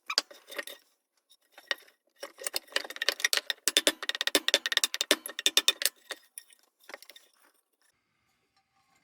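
Metal parts of a vintage battery lantern rattling and clinking as it is handled and worked apart: a dense run of rapid clicks and rattles from about two seconds in until about six seconds, with a few softer clicks near seven seconds.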